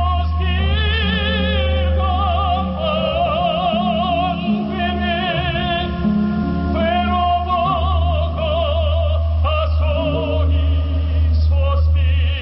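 A man singing in an operatic style with wide vibrato through a microphone, over instrumental accompaniment with a steady bass.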